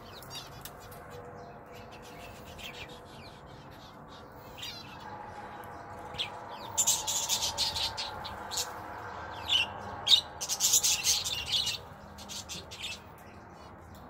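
Canaries chirping, with two stretches of rapid trilling song, loudest about seven and ten seconds in.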